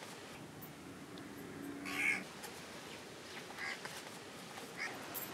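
An animal calling three times in short calls, the first about two seconds in and the loudest.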